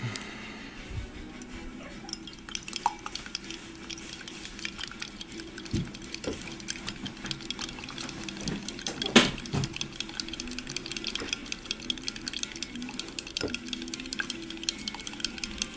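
Dishes and containers clinking and knocking as they are handled, with many small clicks and one sharp, louder knock about nine seconds in.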